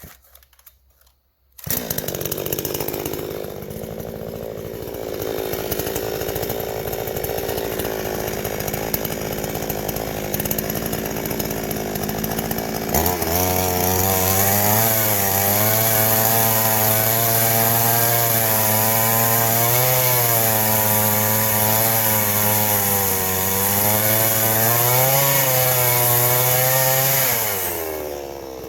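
Two-stroke chainsaw running at idle after coming in suddenly about two seconds in. At about thirteen seconds it is throttled up to full speed and held there, cutting wood, its pitch dipping and recovering a few times under load, before it drops back near the end.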